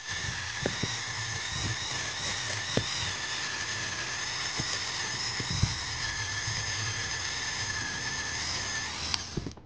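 A high-speed rotary tool spinning a soft brush wheel against the plastic end cap of a small DC motor, scrubbing off rust: a steady high whine with a few ticks. It cuts off just before the end.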